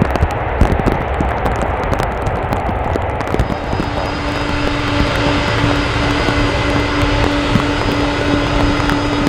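Jet airliner engines running, a loud steady rush with a steady whining tone that comes in about three and a half seconds in. Sharp ticks sound over the first few seconds.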